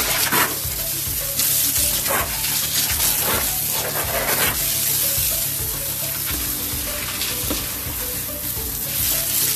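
Water spraying hard from a hose onto a tiled floor and walls, a loud steady hiss with a few brief surges.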